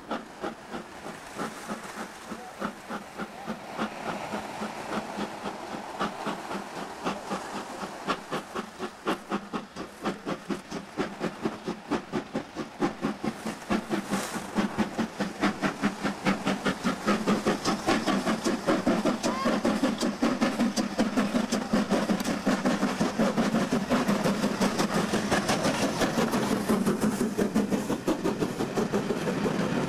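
BR Standard Class 4 2-6-4 tank engine 80079 working hard, its exhaust beats coming fast and even and growing steadily louder as the locomotive approaches and passes.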